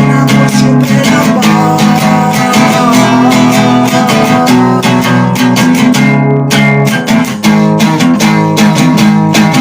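Band music led by strummed guitar, dense and loud, with a fast, steady rhythm of strokes.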